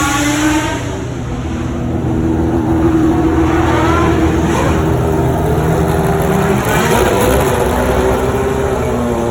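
A performance car's engine running hard and revving, its pitch holding, then rising and falling as the throttle and gears change.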